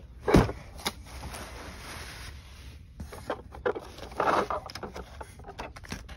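Packaging being handled in a cardboard box: a loud thump about half a second in, then rustling tissue paper and crinkling plastic bags with scattered small clicks.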